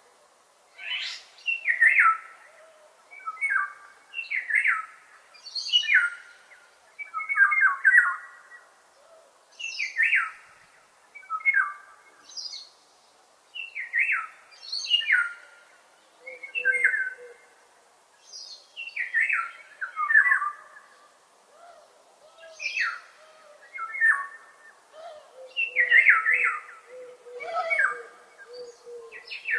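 Bird song: short phrases of quick falling notes, repeated every second or two.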